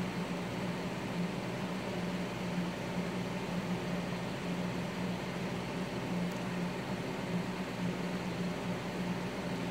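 Steady low hum over even hiss, with no music or speech.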